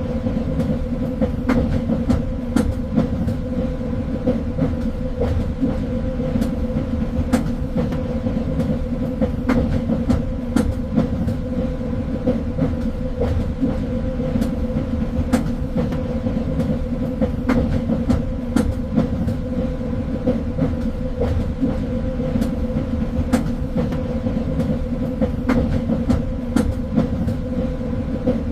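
A train running along the track: a steady low rumble with a constant hum, broken by irregular sharp clicks from the wheels on the rails.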